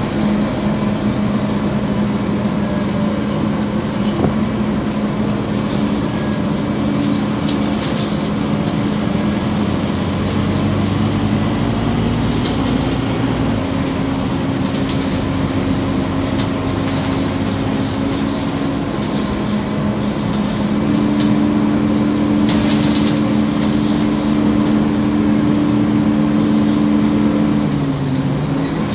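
Scania OmniCity city bus heard from inside the passenger saloon while driving: a steady diesel engine and drivetrain hum whose pitch steps up about twelve seconds in and again around twenty seconds, then sinks briefly near the end. A couple of brief rattling clatters come through, about eight seconds in and again after twenty-two seconds.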